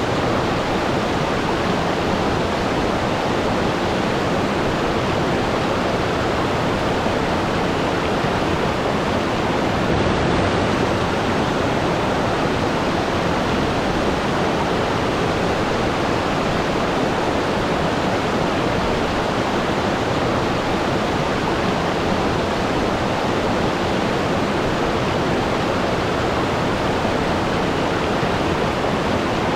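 Waterfall: water falling in a steady, dense rush with no let-up.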